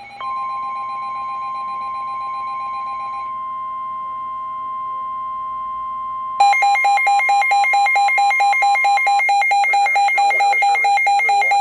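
Emergency weather alert tones from radio receivers. A steady, single-pitched warning alarm tone of the kind NOAA Weather Radio sends sounds over other electronic tones and stops about nine seconds in. From about six seconds in, a loud electronic alarm beeps rapidly and keeps going.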